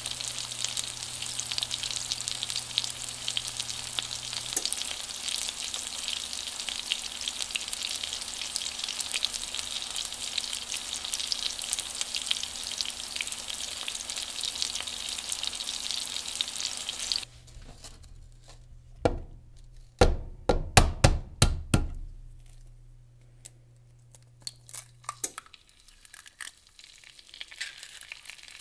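Sliced sausage rounds sizzling steadily in hot oil in a nonstick frying pan. The sizzle cuts off suddenly about 17 seconds in, and a quick run of sharp knocks and clatter follows a couple of seconds later.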